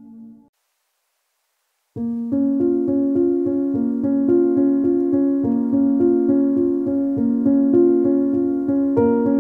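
Background music: a sustained, ambient track ends about half a second in, then after about a second and a half of silence a new piano-keyboard track starts, playing repeated notes in a steady rhythm.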